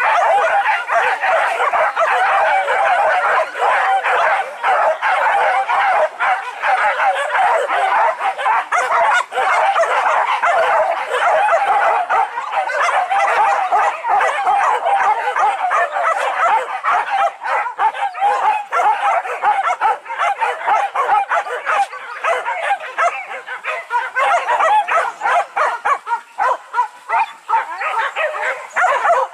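A pack of boar-hunting dogs barking and yelping without pause, many voices overlapping.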